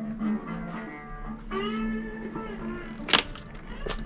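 Guitar music playing, with a sharp click about three seconds in and a softer one near the end.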